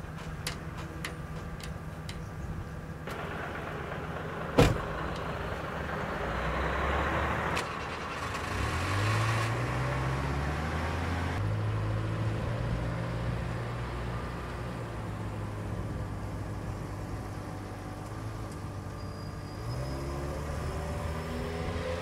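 A door shuts with a sharp bang about four and a half seconds in. Then a Subaru Sambar kei truck's small engine starts and runs, its pitch rising and falling, and revs up again near the end as the truck pulls away.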